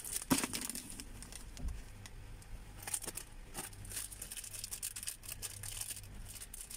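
Small clear plastic packets crinkling and rustling as they are handled and opened by hand, with irregular crackles and a few sharper clicks, the loudest just after the start.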